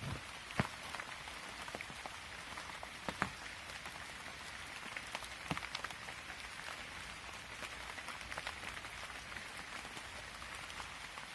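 Light rain pattering steadily on leaves, with a few louder single taps now and then.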